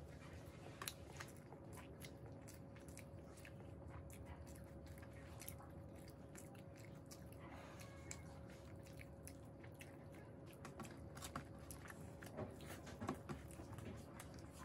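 Faint chewing and mouth sounds of people eating rice and curry with their hands, with many small scattered clicks and squishes of fingers mixing food on steel plates.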